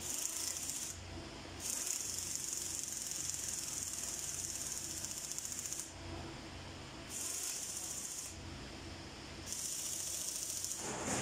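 A hand-held spray hissing in four bursts, the longest about four seconds, over the engine's cylinder heads.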